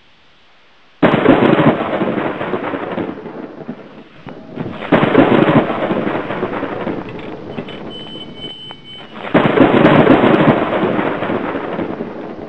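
Three loud crashing rumbles, each starting suddenly and dying away over a few seconds, the first about a second in and then roughly every four seconds.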